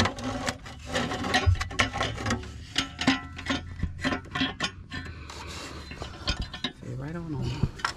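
Irregular metal knocks, clinks and scraping as a new catalytic converter is worked down into a car's engine bay, rubbing against surrounding parts.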